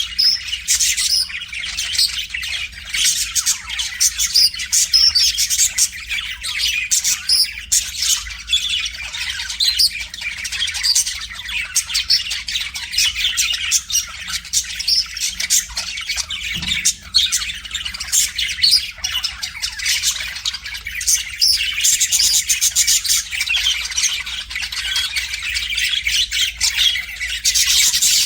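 Budgerigar warbling without pause: a rapid, unbroken chatter of high chirps, clicks and squawks.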